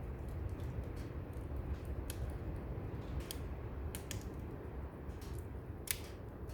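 Firewood burning in a brazier, crackling with sharp irregular pops, the loudest about six seconds in, over a steady low rumble of distant waves.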